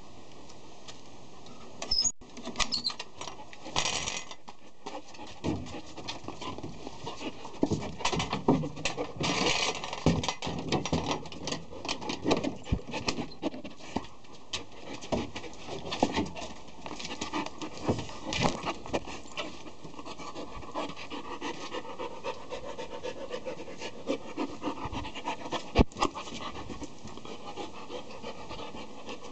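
A 10-month-old Akita dog panting and scuffling as it playfully mouths at a person's hand, with scattered knocks, scrapes and the pattering of paws. A sharp click comes about two seconds in, and a loud knock near the end.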